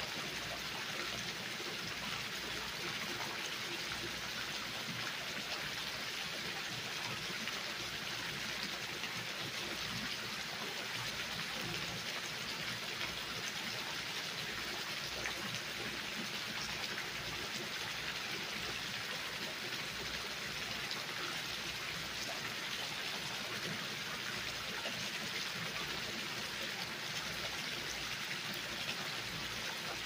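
Water sheeting down a stone water wall and splashing into a shallow pebble-lined pool: a steady, even hiss of falling and splashing water.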